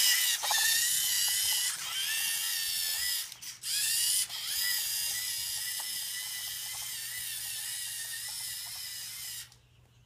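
Lego Mindstorms robot car's electric motors and plastic gears whining as it drives, with two brief breaks about three and a half and four seconds in. The whine grows gradually quieter as the car moves away, then stops shortly before the end.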